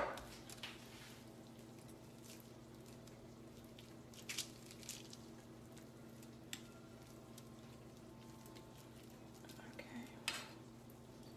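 Quiet kitchen room tone with a steady low hum, broken by a few faint, short clinks of kitchen utensils and dishes.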